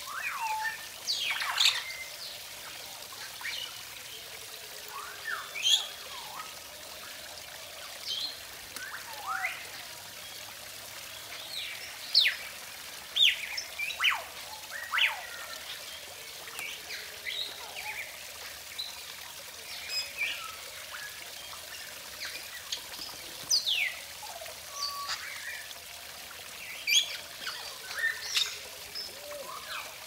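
Water trickling steadily down a small rock waterfall, with many short, sharp bird whistles and chirps scattered over it, each sliding up or down in pitch.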